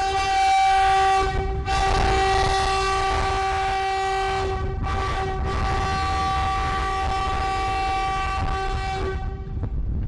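Diesel freight locomotive's air horn sounding four steady blasts, long, long, short, long, over the low rumble of the passing train.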